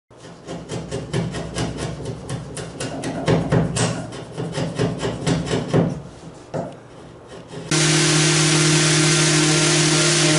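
A hand tool working wood in quick repeated strokes, several a second, on a solid-wood boat stem. About three-quarters of the way in, a power tool starts abruptly and runs steadily with a constant hum.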